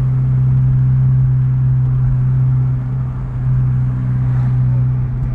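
2018 Honda Civic Hatchback Sport's 1.5-litre turbocharged four-cylinder engine and intake droning steadily from inside the cabin under light throttle, with a couple of brief dips in loudness.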